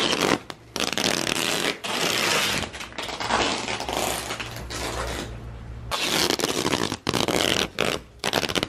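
Silver duct tape being pulled off the roll in several long ripping stretches with short breaks between them as it is wound around a person's body.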